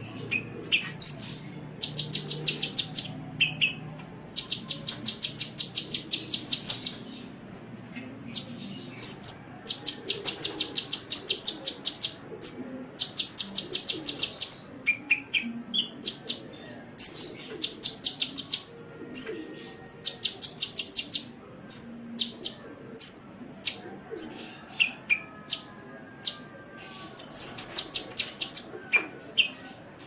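Sunbird ('kolibri') song: rapid high trills of evenly spaced notes, each lasting a second or two, repeated between sharp single high chirps.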